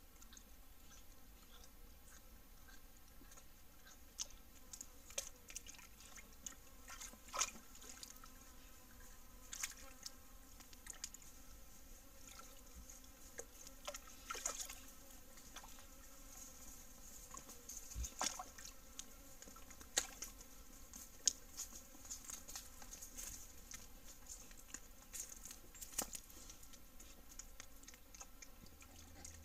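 Javelinas (collared peccaries) at a small rocky pool: faint, irregular clicks and small splashes as they drink and move about, over a steady faint high hiss.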